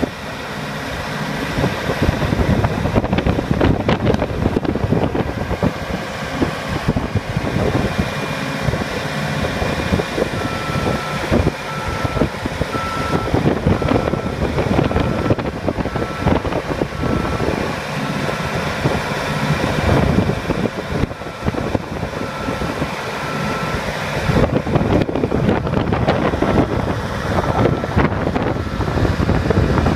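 Hydraulic chain jack rig and its power unit running loudly under test, a steady machine drone with continual rattling and clanking of steel. About a third of the way in a warning beeper starts, about three beeps every two seconds, and stops shortly before the end.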